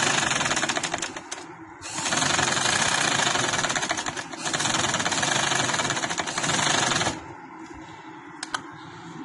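Sewing machine stitching down pleats in cotton fabric, needle strokes running at a fast, even rate. It stops briefly about a second and a half in, runs again, then stops about seven seconds in, followed by a single light click.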